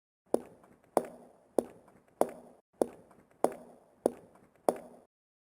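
Eight sharp, evenly spaced knocks on a hard surface, about one every 0.6 seconds, each dying away quickly.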